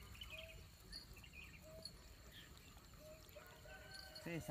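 Faint outdoor ambience of chirping insects and birds, with a short call repeating about once a second.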